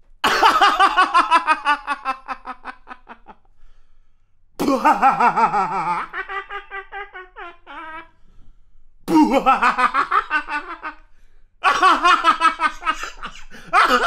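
A Jamaican man laughing in four separate bouts, each a quick run of ha-ha pulses that fades out. The second bout trails off into higher, gliding notes.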